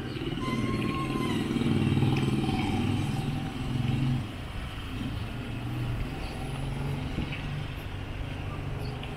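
Motorcycle engine running while riding, louder over the first few seconds and then easing off abruptly about four seconds in as the throttle is closed.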